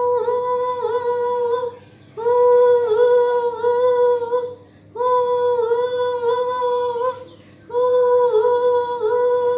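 Voices humming a simple tune in four phrases of about two seconds each, each held at a steady pitch with small dips, with short breaks between them.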